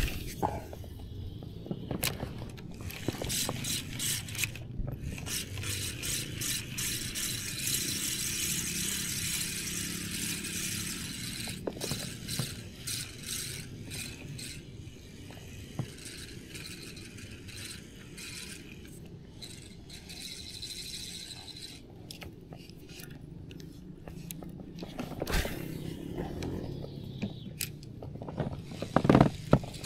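Spinning reel cranked to retrieve the lure after a cast, a steady whirring of its gears and line, with scattered clicks and knocks from handling the rod and reel.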